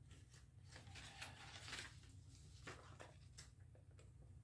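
Faint, irregular snips of small scissors cutting through paper.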